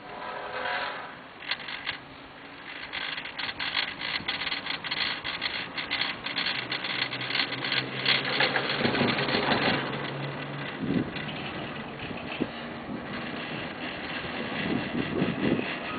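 Poma Italia detachable quad chairlift running: a long run of rapid clicking and clacking from the haul rope and sheaves, easing after about ten seconds, with gusts of wind on the microphone.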